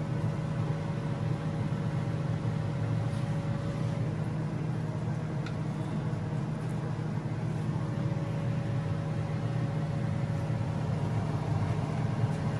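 A steady low mechanical hum, like a fan or motor running, with a faint thin whine that comes and goes.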